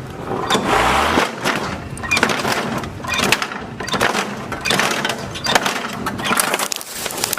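Lawn mower blade striking and breaking up a toy: repeated irregular cracks and clattering over the running mower.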